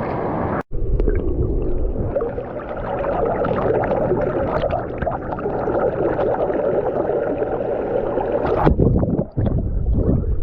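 Ocean surf washing in and churning close to the microphone, a loud, rough gurgling rush of water, with a brief cutout about a second in.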